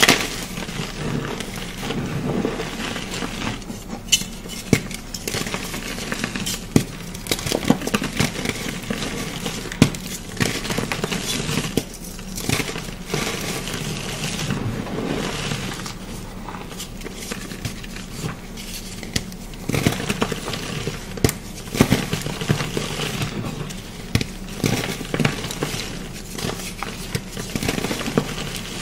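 Blocks of chalk being crushed and crumbled by hand, giving a continuous run of crunchy crackles and sharp snaps as pieces break apart.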